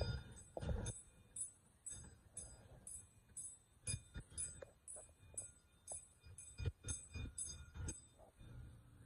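Railroad crossing signal bell dinging steadily about two and a half times a second and stopping about eight seconds in, the warning that a train is crossing. Scattered low thumps sound underneath, the loudest at the start.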